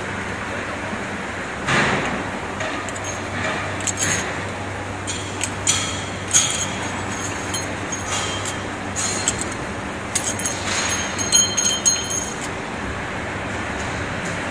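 Injection moulding machine running with a steady low hum. Over it come a knock about two seconds in, then a series of light clinks and knocks between about four and twelve seconds as hands work at the open steel mould.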